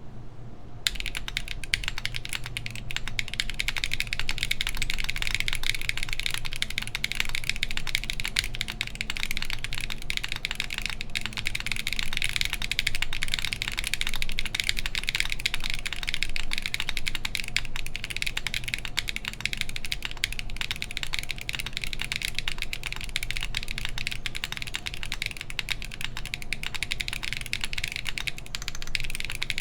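Continuous fast typing on a mechanical keyboard with Everfree Grayish tactile switches (59 g springs, stock lube), an aluminum plate and GMK keycaps, one dense run of key clacks and bumps. The typing starts about a second in.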